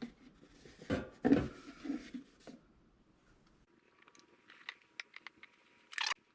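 Knocks and clicks from handling the oil bottle and long funnel while filling the engine with oil. There are a few heavier knocks about a second in, then scattered light clicks and one sharper click near the end.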